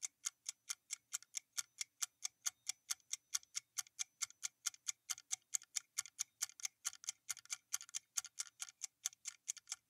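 Clock-ticking sound effect marking a quiz answer countdown: faint, even ticks, about four a second.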